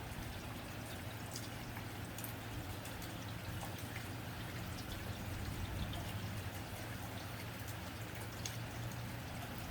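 Steady rain on a tin roof: an even patter with scattered sharper drip ticks, over a low steady hum.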